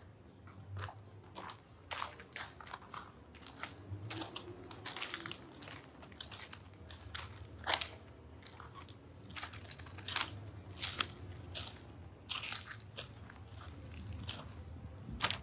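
Footsteps on a walking path: short crisp steps, about two a second and somewhat irregular, over a low steady background hum.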